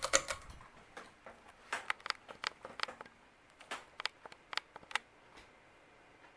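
Fasco Gulf Stream ceiling fan just switched to medium speed: a string of light, irregular clicks and ticks over the first five seconds, then only a faint steady whir.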